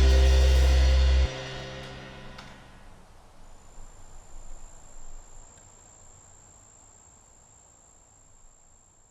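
A band's final chord ringing out and fading: the deep bass stops abruptly about a second in, and the rest dies away over the next two seconds. A faint, steady, high-pitched trill then comes in over low hiss.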